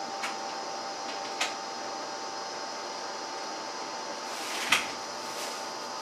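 Motor oil being poured slowly from a plastic quart bottle into a new hydraulic oil filter, mostly quiet, with a few faint clicks and one sharper click about three quarters of the way in. A steady background hum, like a fan or heater, runs underneath.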